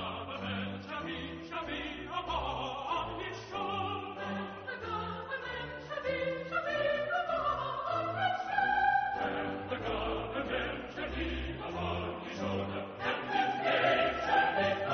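Background classical music: voices singing long held notes over a choir and orchestra.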